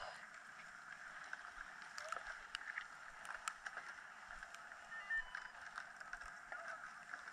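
Skis sliding and scraping on packed snow, with many short, sharp clicks of skis and poles, over a steady, even hiss.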